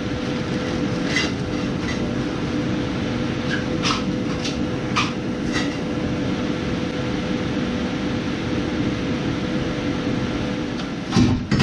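A steady mechanical hum with a faint constant whine, and scattered light metal clinks as tools and parts are handled under the car. A louder clank comes near the end.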